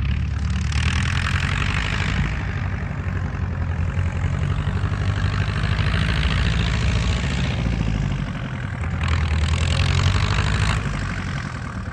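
Massey Ferguson 185 tractor's four-cylinder diesel engine running hard under load as it pulls a loaded rice trailer up a rise. The engine note is steady and swells louder for a couple of seconds near the end.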